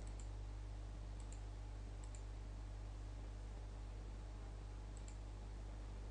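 Computer mouse button clicks, four pairs of quick faint clicks, over a steady low electrical hum.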